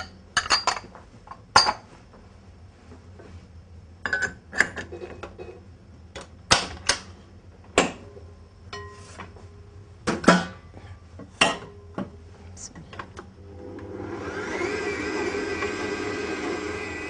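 Clinks and knocks of metal parts as the bowl and mixing attachment of a stand mixer are fitted in place. Near the end the mixer's motor starts up and runs steadily, mixing the dry flour and semolina.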